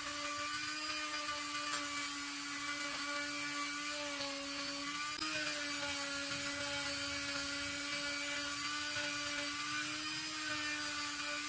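Small pen-style electric screwdriver running with a steady, even motor whine as it drives out the tiny screws of a watch case. There is a faint click and a slight change in pitch about five seconds in.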